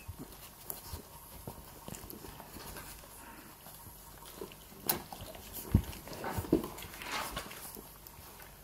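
Puppies suckling from their mother dog: a patter of small wet sucking and smacking clicks, with a few sharper knocks about five and six seconds in.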